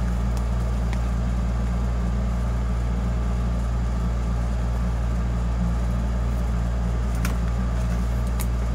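A steady low hum, unchanging throughout, with a couple of faint ticks near the end.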